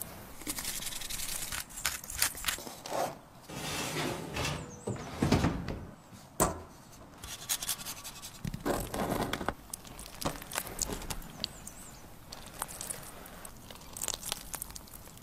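Close-up food-preparation sounds: a silicone spatula smearing thick tomato sauce, then cheese scraped over a rasp grater in a run of short strokes. There are a few sharp clicks along the way.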